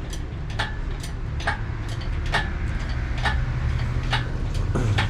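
Steady, even ticking, a sharp click a little more than twice a second, over a low steady rumble.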